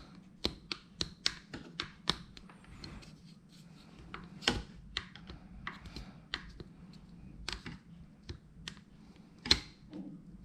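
Quick sharp taps and clicks of a plastic scale working setting putty around a helmet camera mount, levelling and shaping it. About four taps a second at first, then scattered, with a louder tap about four and a half seconds in and another near the end.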